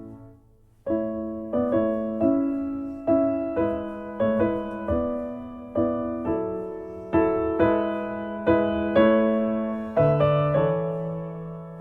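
Background piano music: single notes and chords struck at a gentle, even pace, each ringing and fading, after a brief pause at the start.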